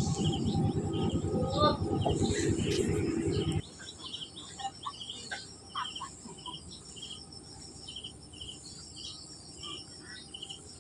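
Insect chirping in a steady, even rhythm, with a few scattered bird-like chirps. A loud, dense low noise fills the first few seconds and cuts off suddenly.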